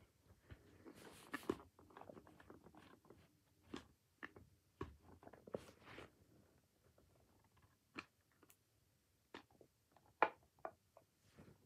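Faint, scattered clicks, taps and soft rustling of objects being handled close to the microphone, with the sharpest click about ten seconds in as a black plastic object is handled.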